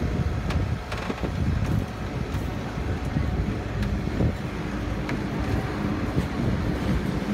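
Kubota U35 mini excavator's diesel engine running under load as the hydraulic boom and bucket are worked, with a few short metal knocks.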